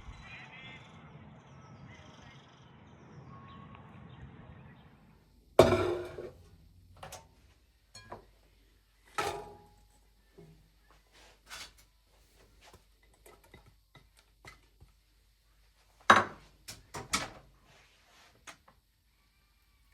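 A series of separate knocks and clunks of objects being handled and set down, after a few seconds of faint steady background haze. The loudest knock comes about five and a half seconds in, with a quick cluster of three near the end.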